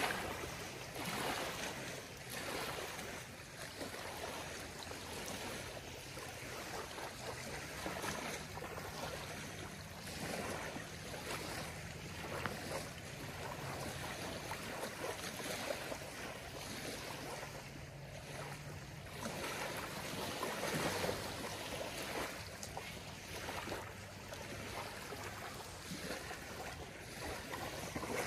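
Small lake waves lapping on a gravelly shore, each wash swelling and ebbing at an uneven pace.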